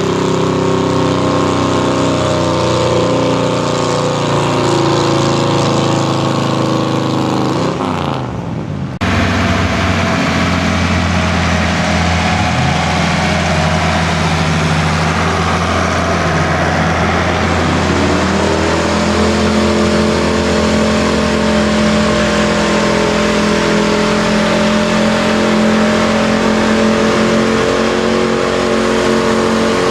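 Pickup truck engines running hard under load while pulling a weight-transfer sled on a dirt track: first a Ford pickup mid-pull, then, after a break about eight seconds in, a 1970s Ford F-series pickup whose engine note rises sharply about halfway through as it launches, then holds at a high steady pitch as it drags the sled.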